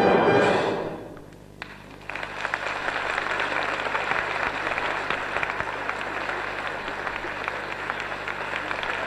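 An orchestra's closing chord dies away, and after a brief lull a theatre audience breaks into steady applause about two seconds in.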